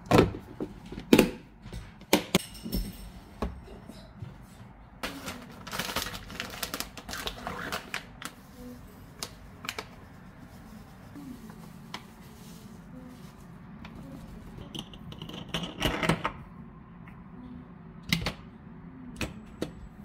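Kitchen containers being handled: a plastic food container and a glass spice jar clicking and knocking, loudest in two sharp clicks near the start, with busier runs of clicking and rustling partway through and again near the end.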